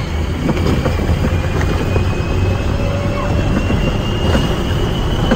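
Rush of wind and the rumble of an open-top Test Track ride vehicle running at high speed on its track, with a faint whine rising slowly in pitch.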